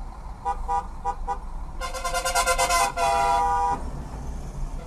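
Car horn honking in slow city traffic: four short toots, then a long blast of about two seconds, over a steady low rumble of engines and road.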